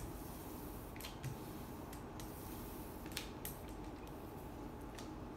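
A hand ink roller being rolled over a photopolymer photogravure plate, spreading etching ink: faint rolling with a few soft clicks and creaks.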